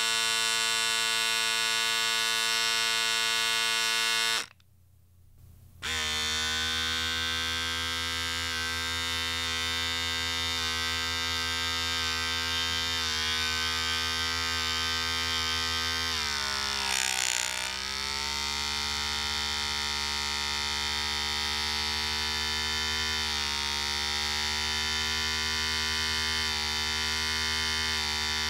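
Electric shaver motor and cutters buzzing steadily. It switches off about four seconds in, and after a short gap a shaver switches on again and runs with a steady buzz, its pitch sagging briefly for a second or so in the middle.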